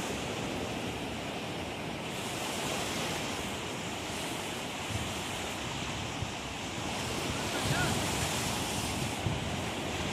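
Surf breaking and washing in over a rocky beach, a steady rushing noise, with wind buffeting the microphone.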